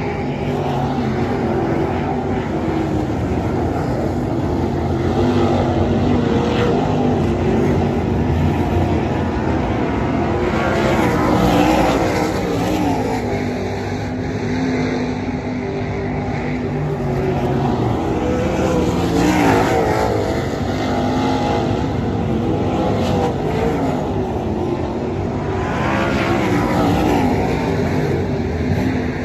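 A field of winged 360 sprint cars running laps on a dirt oval, their V8 engines rising and falling in pitch as they go through the turns. The sound swells three times, about seven seconds apart, as the pack comes past.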